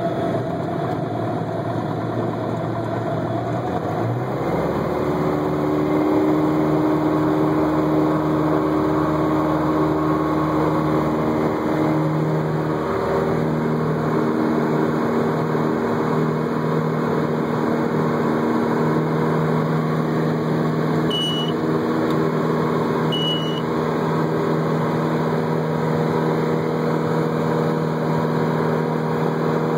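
Symphony SA160 light aircraft's propeller engine heard from inside the cabin, stepping up from low power to full takeoff power about four seconds in, then running steadily through the climb-out of a touch-and-go. Two short high beeps sound about two-thirds of the way through.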